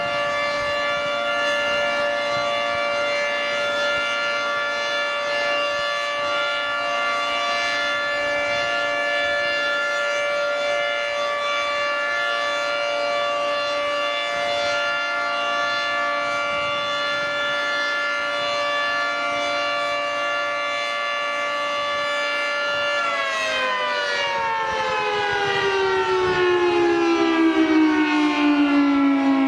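Federal Signal 3T22 three-tone rotating outdoor warning siren sounding a steady alert chord of several held pitches. About three-quarters of the way in, all the pitches begin falling together as the siren winds down, while it grows a little louder.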